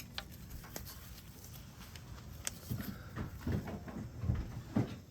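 Hand tools clicking and knocking against the motorbike's engine while working at a tight clutch-arm bolt. Scattered light clicks come first, then an irregular run of dull low thumps in the second half.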